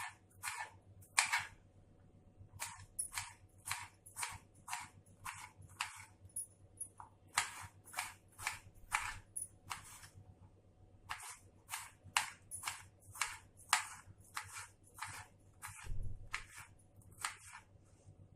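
Kitchen knife chopping vegetables on a cutting board in a steady run of sharp strikes, about two to three a second, with a brief pause partway through.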